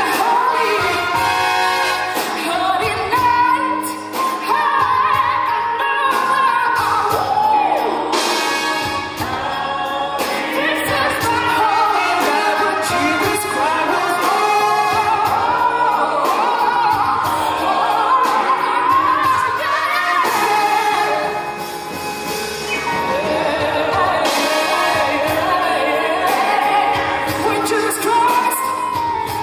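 A woman sings solo into a microphone, accompanied by a live orchestra.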